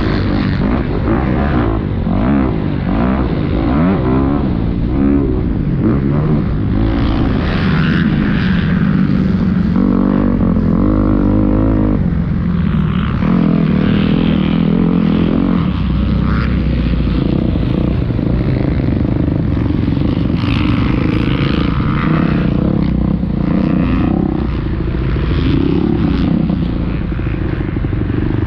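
Dirt bike engine heard from a camera mounted on the bike, revving up and down rapidly through the gears for the first several seconds, then holding steadier revs with shorter rises and falls.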